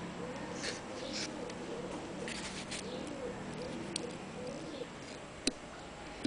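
A dove cooing repeatedly, with low arching calls, while hand tools handle a steel brake master cylinder: a few short scrapes, then two sharp clicks about four and five and a half seconds in as needle-nose pliers work at the cylinder.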